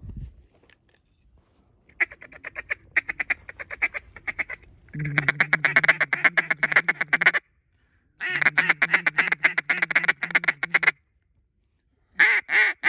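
A duck call blown to work a passing flock: three long runs of rapid feeding chatter, the middle two louder, then four short separate quacks near the end.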